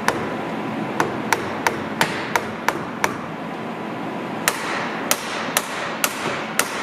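Hammer blows, about three a second in two runs with a short pause near the middle, the later blows ringing on briefly: someone knocking at a stuck part of a tram car that does not budge.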